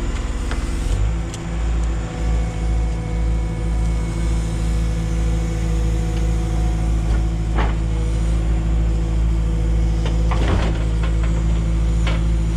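Diesel engine of a Cat 314E excavator running under work, its note shifting about a second in, with a few knocks of wood or metal later on.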